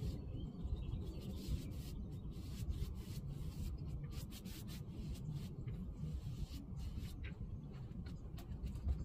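Hand rubbing strokes on a wooden door as stain is worked into the wood, an irregular run of short scuffs over a steady low rumble.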